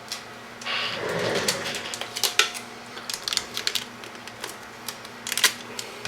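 Tape pulled off a roll with a short rasp about a second in, then irregular light clicks and taps of hands pressing wires and tape into place.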